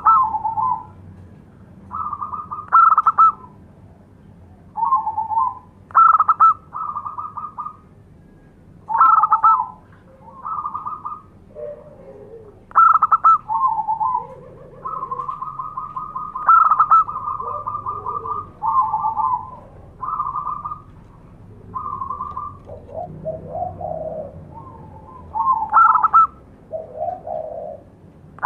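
Zebra dove (perkutut) calling: short, rapid trilled coo phrases repeated every two to three seconds, with a few softer, lower notes between them.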